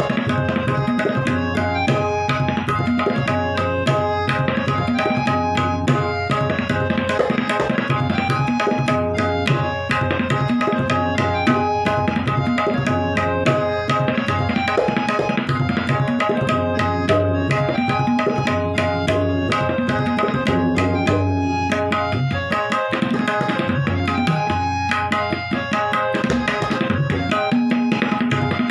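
Tabla solo in teentaal: a fast, unbroken stream of strokes on the tuned right-hand dayan and the left-hand bass bayan, the dayan's ringing strokes over deep bayan strokes.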